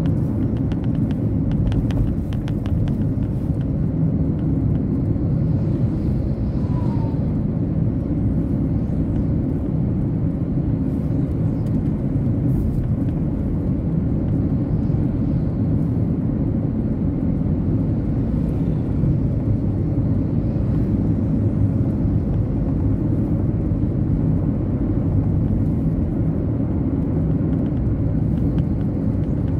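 Steady in-cabin road and engine noise of a car driving on a wet road, a constant low rumble.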